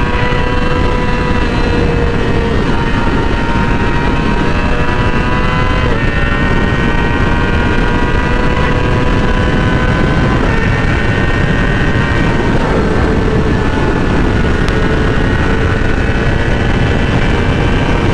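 Yamaha R6 inline-four engine running under way, its pitch climbing slowly and dropping back three times, over a steady low rush of wind noise.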